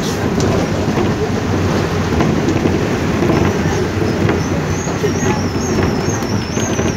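Steady engine rumble and road noise inside a moving vehicle in the rain, with scattered taps of rain on the glass and body. A faint, high, wavering whistle repeats over the last two seconds or so.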